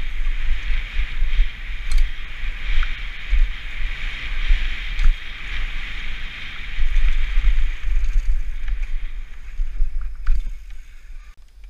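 Mountain bike riding fast down a dirt trail: wind buffets the helmet camera's microphone over the rolling noise of tyres on dirt and leaves, with scattered clicks and rattles from the bike. The noise dies down about ten seconds in as the bike slows.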